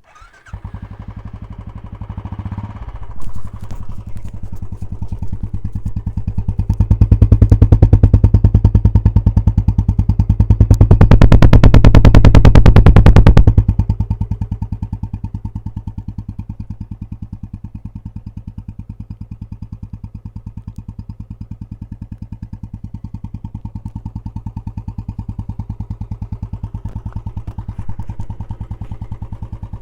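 Royal Enfield Classic 350 BS6's single-cylinder engine running through a K-Indori aftermarket silencer: it idles with an even beat, is revved and held high twice, then drops back to idle.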